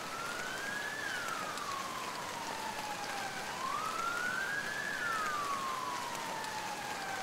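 Emergency-vehicle siren wailing in slow rises and falls, about one cycle every four seconds, over a steady hiss of heavy rain.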